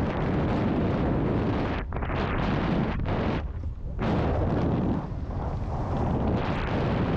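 Wind buffeting the microphone over the low rumble of a mountain bike riding a rough trail, easing off briefly about two seconds in and again for about half a second near the middle.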